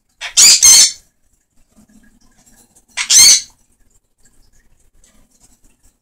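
Sun conure parrot screeching: a loud, harsh double squawk just after the start and a single squawk about three seconds in.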